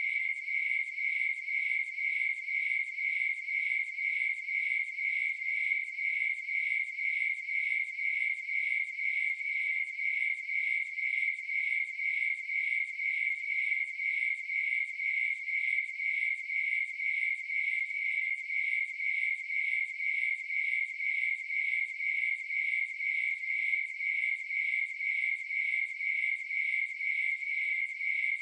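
Crickets chirping in an even, unbroken rhythm at one high pitch.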